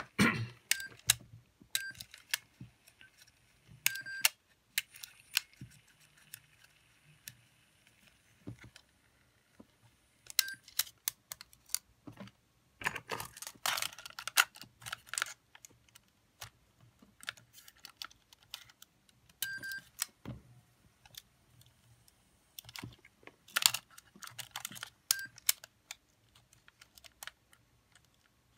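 Irregular small clicks, taps and scrapes of hand tools and small metal and plastic parts being handled on an opened cassette Walkman's mechanism. The clicks come in loose clusters.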